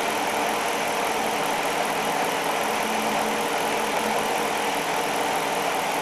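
Jeep Commander's 5.7-litre Hemi V8 idling steadily and smoothly, with the number 7 fuel injector, which the engine computer had shut off for a misfire, working again.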